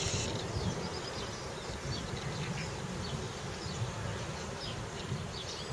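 Outdoor ambience: a low, wavering buzz with faint, scattered high chirps over a steady hiss.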